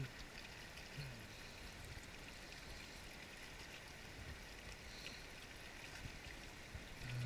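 Shallow mountain stream flowing over rocks: a faint, steady wash of running water.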